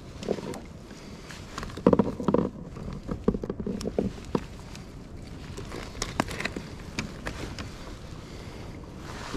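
Irregular clicks, knocks and rustling from hands working the hook and line free of a big lingcod lying in a landing net on a kayak, the loudest knocks about two seconds in.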